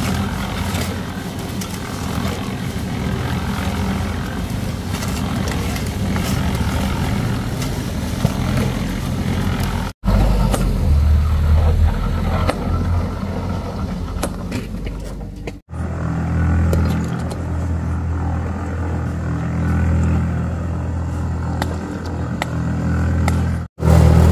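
A motor vehicle engine running steadily with a noisy rush over it, in several stretches that change abruptly about 10 and 16 seconds in and near the end.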